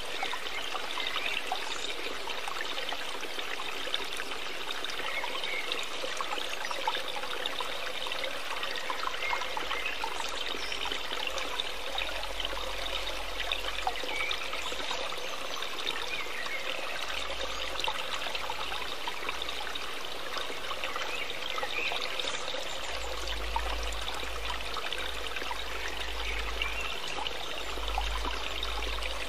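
Running water trickling steadily, like a small stream.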